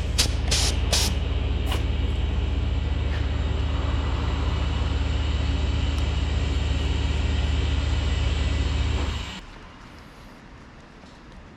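A steady mechanical drone with a low hum and a hiss, cutting off suddenly about nine seconds in; a few sharp clicks at the start.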